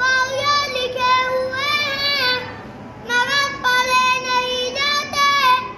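A boy reciting Noorani Qaida Arabic syllables in a melodic, sing-song chant, holding long notes. It comes in two phrases with a short break just before the middle.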